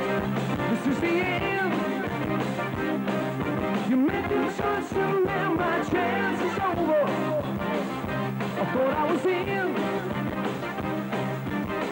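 Live rock band playing a song, with drums, guitar and keyboards and a singer's voice over them.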